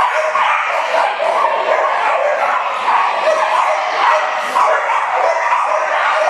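Many dogs barking and yipping at once, their barks overlapping into a steady, unbroken din.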